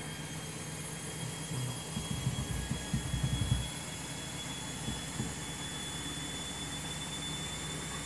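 Front-loading washing machine on its final spin: the motor runs with a steady hum and a faint whine that rises slowly in pitch as the drum gathers speed. Low uneven thuds come about two to four seconds in.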